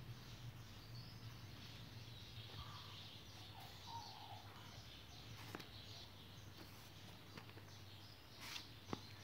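Near silence: faint background hum and noise with a few faint chirps, and a couple of soft clicks, the sharpest near the end.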